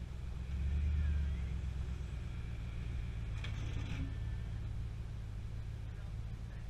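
Ram Power Wagon pickup's V8 engine running at low speed as the truck creeps forward and backs off: a steady low rumble, loudest in the first second or so. A short clatter about three and a half seconds in.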